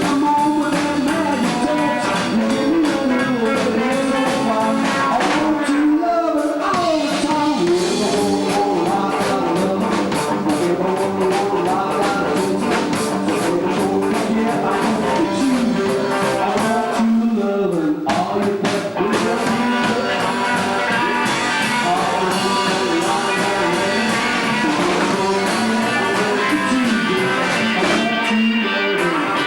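Live band playing a rock and roll number: electric guitar over drums, loud and steady.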